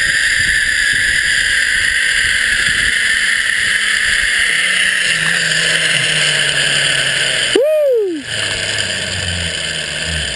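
Zip-line trolley running fast along the steel cable: a steady loud whir and rush of air, with a low hum joining about halfway through. About eight seconds in there is a short squeal that rises and then falls in pitch.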